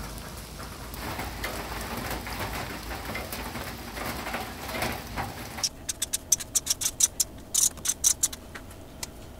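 Steady rain pattering in the woods. About five and a half seconds in it gives way to a felt-tip marker writing on paper, a quick run of short, separate scratchy strokes.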